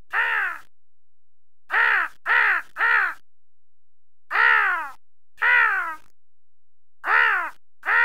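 A person imitating a crow's caw with the voice: a series of loud "kaa" calls, each bending up and then down in pitch. There is a single call, then three in quick succession, then three more spaced about a second apart, with another starting right at the end.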